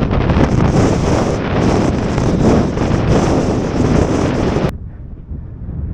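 Strong blizzard wind buffeting the microphone. It cuts off suddenly near the end, leaving a quieter low rumble.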